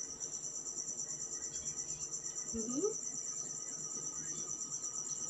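Crickets trilling steadily in a high, evenly pulsing chirr, with a brief rising voice sound about two and a half seconds in.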